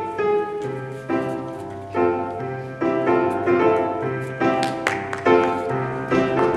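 Piano accompaniment playing an instrumental interlude: repeated chords over a bass note struck about once a second, in a bouncy rhythm.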